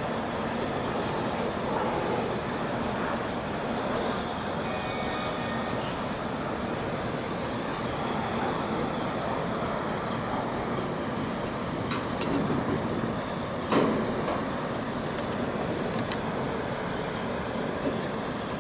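Steady rush and rumble of strong wind on the microphone. A few clicks come between about twelve and sixteen seconds in, with a short thump near fourteen seconds.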